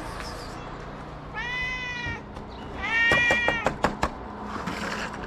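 Orange-and-white cat meowing twice, the second meow louder, followed by a few sharp clicks.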